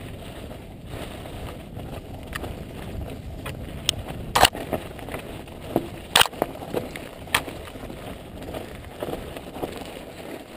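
Mountain bike riding down a loose gravel and stone singletrack: steady tyre rumble and rattle over the stones, with a few sharp knocks as the bike clatters over rocks, the two loudest about four and six seconds in.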